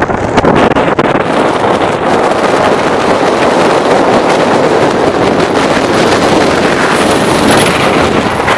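Steel roller coaster train running at speed through banked curves: wheels rumbling on the track and wind buffeting the rider's microphone. A faint high whine joins near the end as the train reaches a lift hill.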